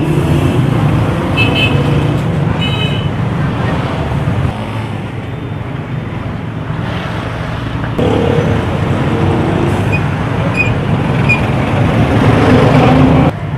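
Road traffic: vehicle engines running, with a few short horn toots in the second half.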